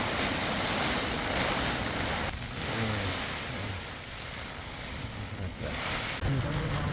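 Strong storm wind blowing hard on the mountain, a steady rushing noise that eases for a few seconds mid-way and then picks up again.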